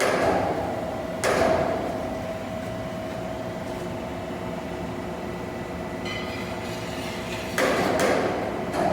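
A large 10 m lathe running with a steady mechanical hum and a held gear tone. Loud sudden clunks that fade out come about a second in and twice near the end.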